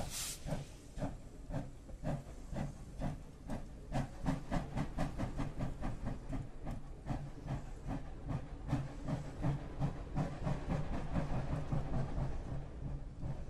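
Steam locomotive pulling away: a blast of steam hiss cuts off just as it starts, then its exhaust chuffs in a steady rhythm of several beats a second.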